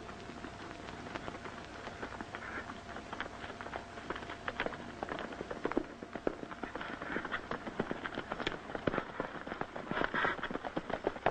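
Horses galloping: a fast, irregular patter of hoofbeats that grows louder.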